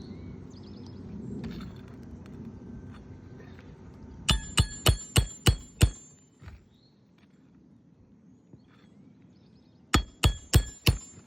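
Hammer driving roofing nails into asphalt shingles: a quick run of six ringing metallic strikes, about four a second, then a second run of five strikes near the end. A low rumble lies under the first few seconds.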